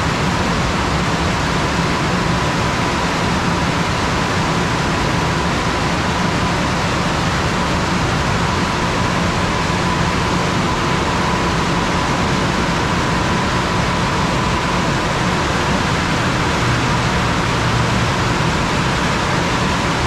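Automatic rollover car wash gantry running over a car: a steady rushing noise with a faint, steady whine underneath.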